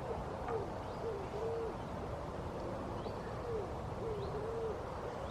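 A bird's low cooing calls: a phrase of several arching notes, then a second phrase about two seconds later, over a steady outdoor hiss.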